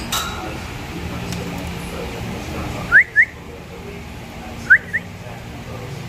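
Cockatiel whistling: two short two-note calls, each a rising whistle followed by a quick higher note, about 3 seconds in and again near 5 seconds. A light knock comes at the very start.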